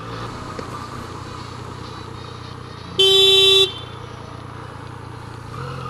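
A single steady vehicle horn blast lasting about two-thirds of a second, some three seconds in. Under it, the low steady running of a 2016 Yamaha MT-09's three-cylinder engine, with traffic noise.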